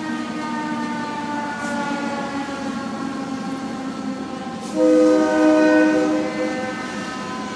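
Multi-chime air horn of a Santa Fe-painted GP60 diesel locomotive blowing a long blast, its pitch drifting slightly lower. A louder blast starts a little past halfway and lasts about two seconds.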